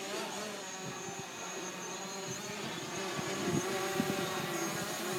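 Small quadcopter drone's propellers buzzing with a steady whine whose pitch wavers as the motors adjust, with a few gusty rumbles of wind on the microphone a little past the middle.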